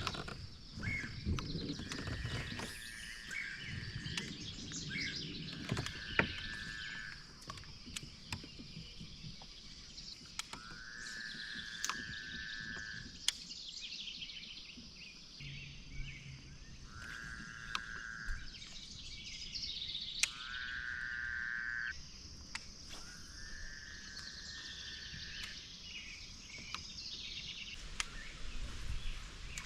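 Lakeside ambience: a trilling animal call repeats about six times, each trill lasting about a second, over a steady high hiss, with scattered sharp clicks.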